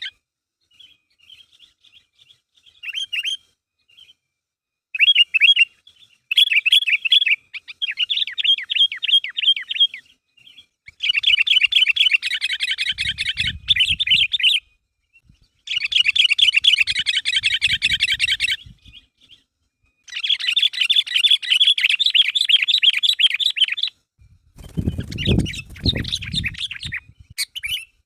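Sooty-headed bulbul (kutilang) singing in fast, chattering bursts of one to four seconds, with short pauses between them. A low rumbling thud sounds under the song for about two seconds near the end, with fainter ones about halfway through.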